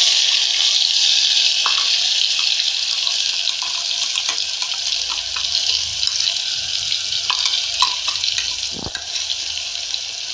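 Wet ground masala paste of coconut, green chilli, garlic and cumin sizzling in hot oil in an aluminium pot just after being poured in: a loud steady hiss with scattered small pops that slowly dies down.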